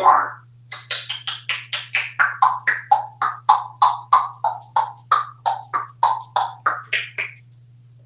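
African grey parrot making a rapid, rhythmic run of short clicking, popping calls, about three or four a second, starting under a second in and stopping a little before the end.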